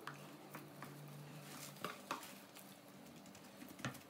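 Faint, scattered clicks and taps of sauce-coated potato and onion wedges being scooped from a mixing bowl and set down on a metal baking tray.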